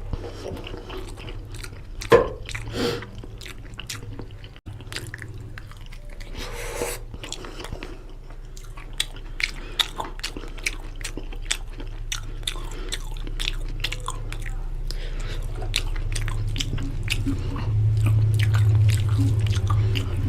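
Close-miked wet chewing and mouth clicks of someone eating mutton curry with rice, over a steady low hum that grows louder near the end.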